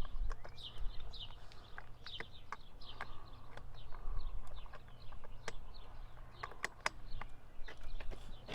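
Small birds chirping over and over in short, quick, downward-sliding notes, with scattered sharp clicks and taps of hand tools and bolts on the chainsaw's metal parts.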